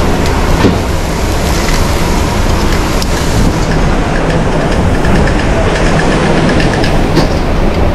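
Loud, steady roar of a busy commercial kitchen working a wood-fired hearth line, with a few faint clicks and knocks of cookware.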